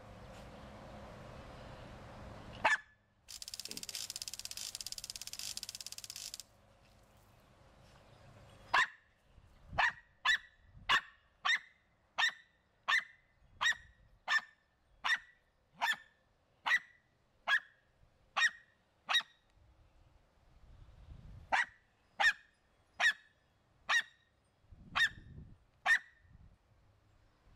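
Small dog barking at a lawn sprinkler: a long string of sharp single barks, about one and a half a second, with a short pause partway through. Before the string, a single bark and a few seconds of hiss.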